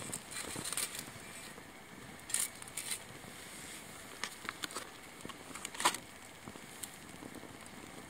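Small wood fire burning in a SOTO ST-941 Tetra mini fire stand, crackling with scattered sharp pops, the loudest about six seconds in.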